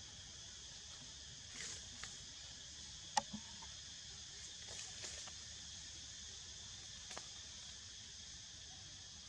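Steady, high-pitched chorus of insects, with a few soft rustling clicks and one sharp click about three seconds in.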